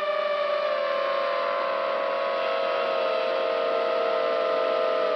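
Multirotor drone's electric motors and propellers whining, heard close from the drone's own onboard camera. The whine holds several close pitches that sag slowly lower as it flies.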